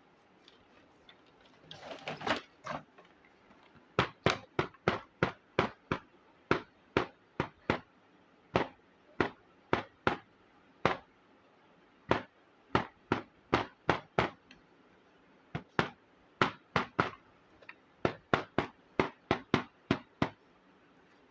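Small plastic miniature kitchen toy pieces being handled, with a short rustle and then many sharp light clicks and taps, two to three a second with a few short pauses.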